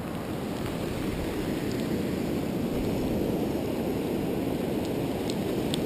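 Steady low rumble of ocean surf breaking on the beach, mixed with wind on the microphone, with a few faint ticks near the end.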